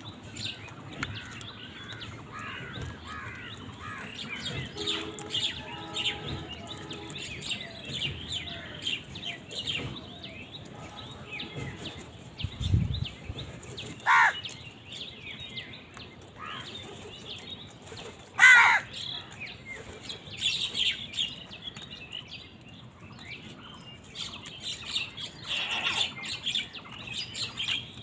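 House crows feeding, with constant bird chirping and two loud harsh caws a few seconds apart past the middle; a dull thump comes just before the first caw.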